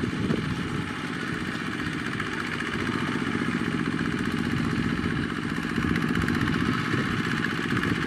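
Two-wheel walking tractor's single-cylinder diesel engine running steadily with an even, pulsing chug while it pulls a trailer loaded with sacks of rice.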